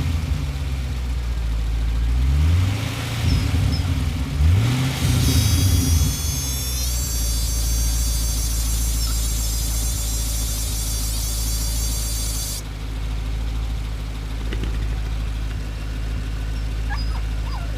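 Pontiac GTO engine in neutral with no load, blipped twice by tapping the throttle, each rev rising and falling, then settling to idle. The engine is being revved to bring out a weird noise its owner is tracing. After the second rev a high-pitched whine of several tones sits over the idle for about seven seconds, then cuts off suddenly.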